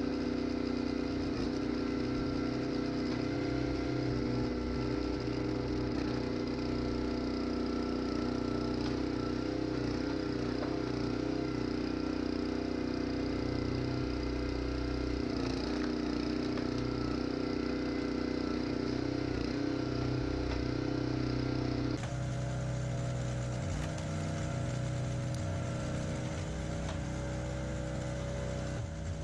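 Engine running steadily at a constant speed. Its note shifts abruptly about three-quarters of the way through, then holds steady again.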